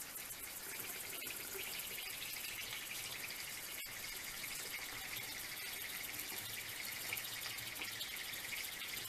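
Molten lead dripping through a perforated pan into a jar of water, giving a quiet, steady high sizzling hiss as the drops harden into shot.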